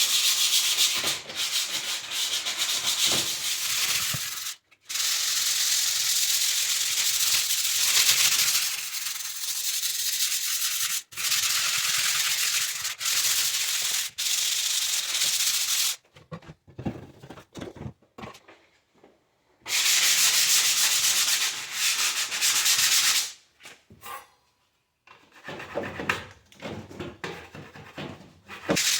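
Sanding dried drywall joint compound on a wall repair: a steady rasping scrape in long stretches, with brief stops and a choppier, intermittent spell about two-thirds of the way through.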